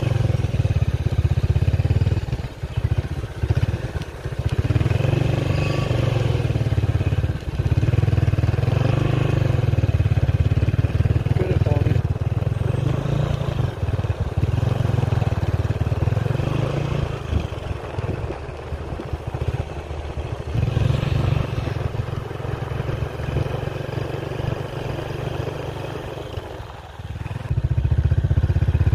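Motorcycle engine running under way with a steady low rumble, easing off briefly several times and dropping lower shortly before the end, then picking up again.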